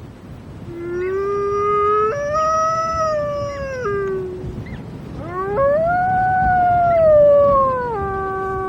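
Arctic wolf howling: two long howls, each sliding up, held high, then dropping, the second settling onto a lower steady note near the end.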